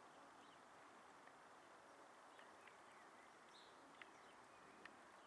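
Near silence: faint outdoor background hiss with a few faint short chirps and ticks, the clearest about four and five seconds in.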